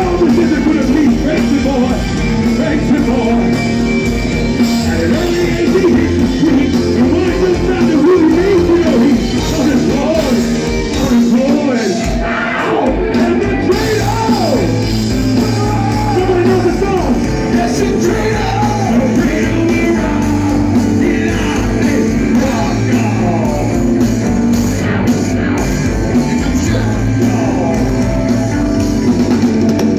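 Progressive metal band playing live at full volume through a club PA, heard from inside the crowd on a phone microphone: distorted electric guitar and drums, with singing.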